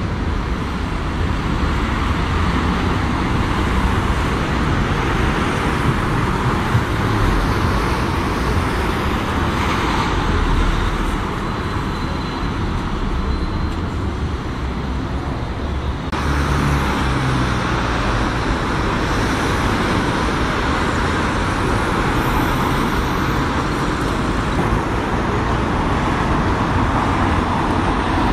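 Road traffic: cars and double-decker buses passing, a steady mix of engine and tyre noise. The sound changes abruptly a little over halfway through.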